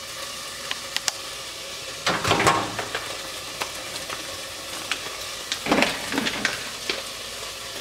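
Chicken fajita strips sizzling steadily in a frying pan. A few clicks and two louder bursts of handling noise, about two and six seconds in, come from the microwave door being opened and a plastic rice pouch being set inside.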